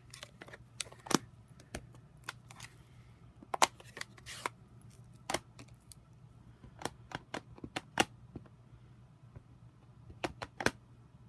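Irregular sharp plastic clicks and taps as Classic Stampin' Pad ink pad cases are handled, opened and set down, and a clear stamp on an acrylic block is pressed onto the ink pad.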